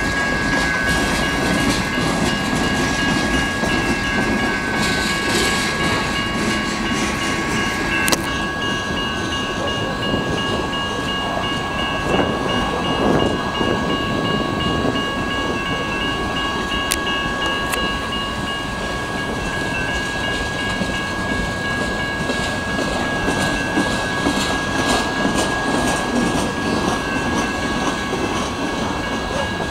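Freight train of boxcars rolling steadily through a grade crossing, with wheel-on-rail noise and a few sharp knocks. The crossing's electronic bells ring throughout.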